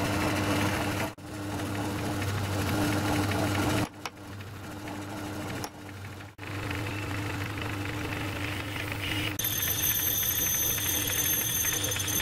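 Myford lathe running under power, its motor and drive giving a steady hum, breaking off briefly about a second in and going quieter near the middle. In the last few seconds a drill held in the tailstock chuck bores into a spinning brass rod, and a thin high-pitched whine joins the hum.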